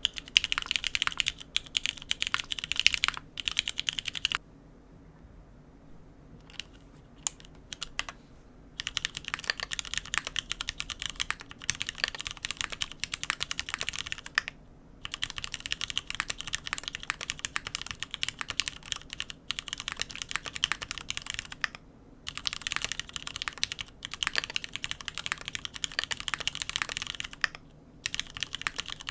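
Typing on O-ring-mounted custom mechanical keyboards with lubed Cherry MX Black linear switches, aluminium plates and GMK keycaps: a dense run of keystrokes. About four seconds in, the typing stops for roughly four seconds, with a few lone clicks. It then resumes on the second keyboard and carries on with brief breaks.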